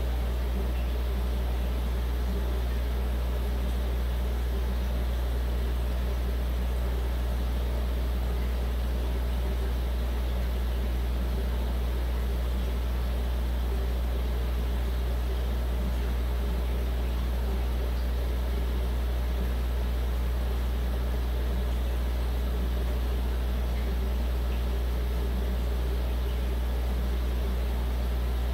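Steady low electrical hum of running aquarium equipment, with a constant hiss over it and no change throughout.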